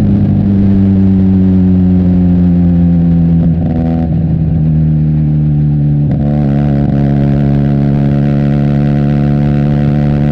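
Benelli TNT 300's parallel-twin engine running through an Austin Racing aftermarket exhaust while riding. The revs sag slowly for the first few seconds, break briefly around four seconds in as with a gear change, then hold steady from about six seconds in.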